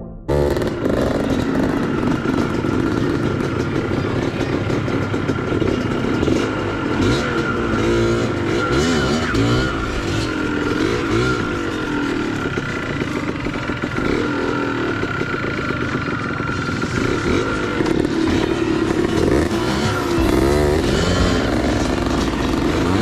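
Enduro dirt bike engines running on a trail ride, the pitch rising and falling as the riders open and close the throttle.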